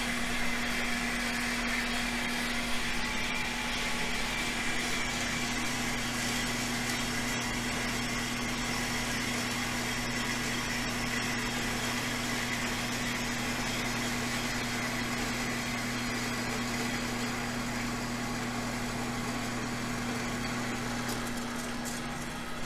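Grizzly horizontal metal-cutting bandsaw running steadily as its blade cuts through a short 1.5-inch steel tube with a welded-in bung, almost solid steel. A lower hum drops out near the end, as the cut finishes.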